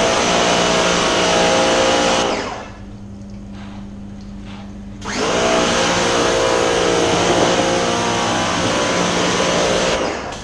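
Electric pressure washer running and spraying: the pump motor and water jet hitting the dirtbike's front wheel and concrete. It runs for about two seconds, drops off for a couple of seconds when the trigger is released, then runs again for about five seconds.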